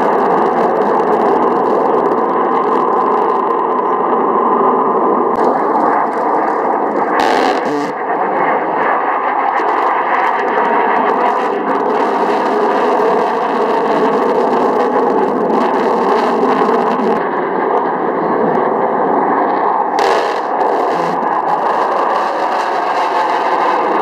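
Fighter jet engine noise, loud and steady, from jets flying low past a mountain ridge, with two short cracks about 7 and 20 seconds in.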